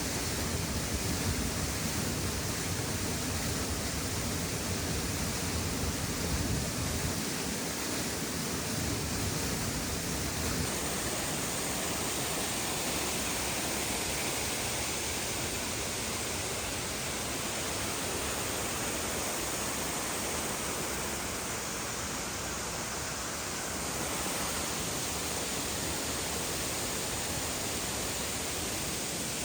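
Steall Falls waterfall pouring, heard close up: a steady, even rush of falling water.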